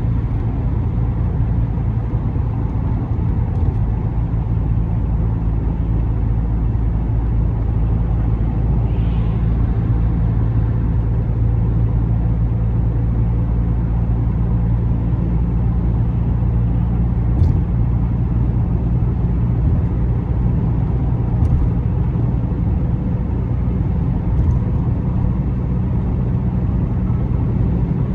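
Car on the move: a steady low rumble of engine and road noise, with a few faint clicks in the second half.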